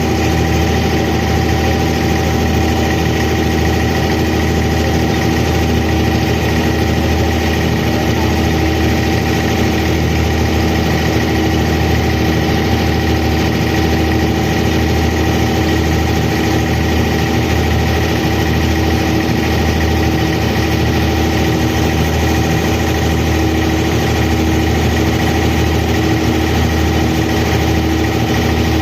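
Abra water taxi's diesel inboard engine running at a steady speed, an even, unchanging drone with a low hum and several steady tones.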